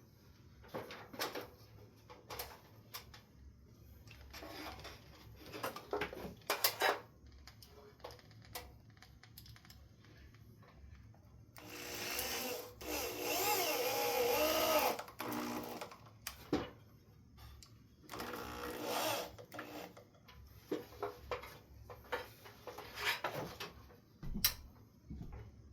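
A cordless drill/driver whirs for a few seconds about halfway through, its pitch wavering as it runs a screw in, with a shorter burst later. Scattered clicks and knocks of handling the shelf bracket and tools come before and after.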